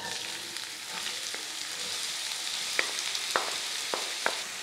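Chopped onions hitting hot oil in a nonstick pan and sizzling, starting suddenly and holding steady. In the second half a wooden spatula gives four or five short knocks as it scrapes the last onions out of a bowl.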